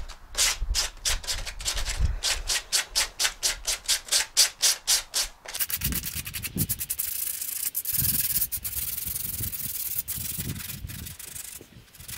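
Hand-sanding cured polyester body filler on a car's rear wheel arch with 80-grit sandpaper, the first coarse pass to knock down the rough high spots. It starts as quick back-and-forth strokes, about four a second, then turns about halfway through into a steadier, continuous scrubbing that eases off near the end.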